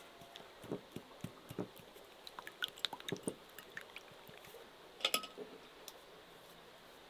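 A pastry brush beating raw eggs in a ceramic bowl: irregular small wet clicks and taps of the bristles and handle against the bowl, with a short, sharper flurry of taps about five seconds in.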